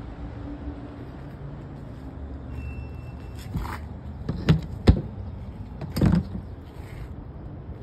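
A few sharp knocks and clicks, the loudest two close together near the middle, over a low steady rumble.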